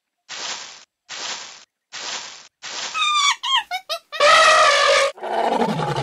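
A large animal's braying call: four short rasping breaths, then yelping cries that fall in pitch, a long wavering call about four seconds in, and a lower falling call near the end.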